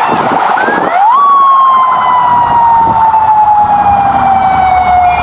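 Siren: a quick pulsing wail at first, then about a second in it rises sharply and falls slowly in one long wail that cuts off abruptly near the end.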